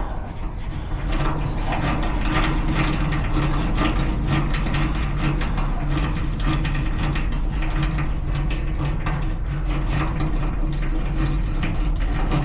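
A small handheld power tool motor running steadily at a low hum, working on a garage door lock cylinder with rapid metallic clicking and rattling.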